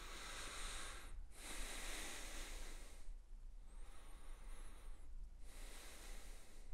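A man breathing slowly in and out through the nose, faint, with about four long breaths.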